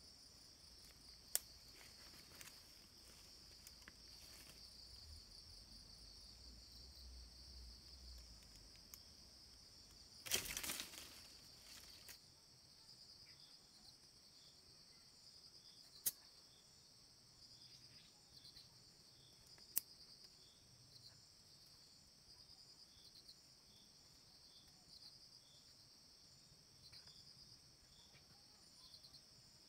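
Forest insects chirring steadily in a high, fast-pulsing drone. A few sharp clicks break in, and about ten seconds in there is a louder noise lasting about a second.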